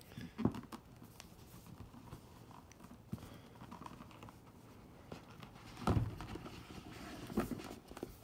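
Cardboard board-game box lid being worked loose and lifted off the box base, with a few light knocks and then two louder bumps and rubs about six and seven and a half seconds in.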